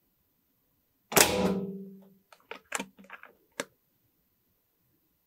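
A single shot from an FX DRS .22 PCP air rifle: a sharp report about a second in that rings on for about a second. A quick run of six or seven metallic clicks follows as the action is cycled to cock it and chamber the next pellet.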